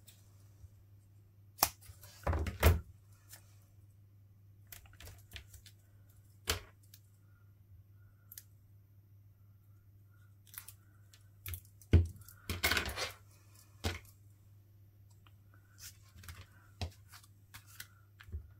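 Paper crafting on a desk: scattered taps and knocks of tools and paper pieces, with short rustles of paper being cut or handled, the two longest a couple of seconds in and about twelve seconds in.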